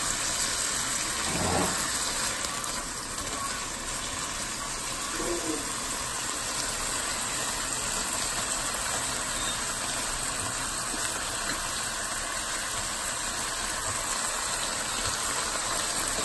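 Beef liver frying in a little oil in a pan, a steady sizzle.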